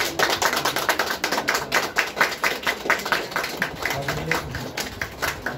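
Applause from a small audience: many hands clapping together without a break.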